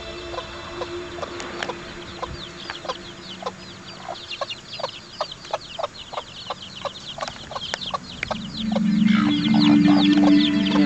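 Domestic chicks peeping in a quick high chorus of short falling chirps while the hen clucks in short low strokes. About eight and a half seconds in, a louder low drone comes in.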